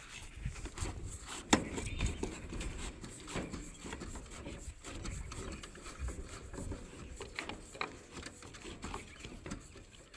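Scattered clicks and light knocks of hands working at steel rebar and PVC electrical conduit, the sharpest about a second and a half in, over a low rumble.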